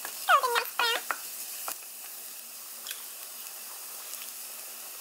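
Minced garlic frying in melted butter in a nonstick wok, a steady soft sizzle, with a few light taps of a wooden spatula. Two short, loud squeaks that bend in pitch come in the first second.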